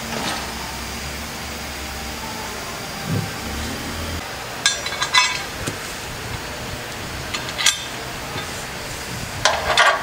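Wrench and bolts clinking against the steel brackets of a snowplow mounting kit: a cluster of sharp metallic clinks about halfway through, a single click later and a short scraping burst near the end, over a steady low hum.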